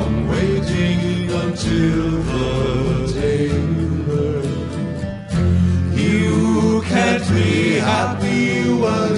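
Live acoustic folk music: acoustic guitar and upright bass playing, with voices singing.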